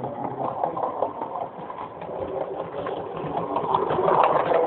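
Regner Lumberjack live-steam model locomotive running along the track with a fast, even chuff, growing louder as it draws close near the end.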